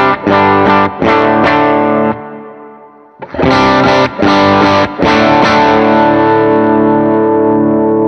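Electric guitar playing overdriven chords through an IK Multimedia Tonex One pedal running a Vox AC30 amp capture, driven by the purple side of a Golden Boy pedal. A few quick strums fade out about two seconds in, then another run of strums starts about a second later and ends on a chord left to ring.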